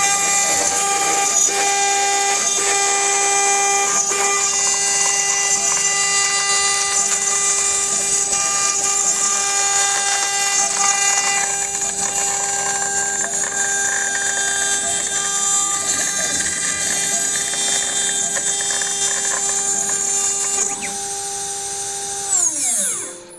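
CNC spindle running and milling cellulose acetate eyeglass temples: a steady machine whine with several fixed tones over cutting noise. The level drops near the end, and the whine then falls in pitch and fades as the spindle spins down.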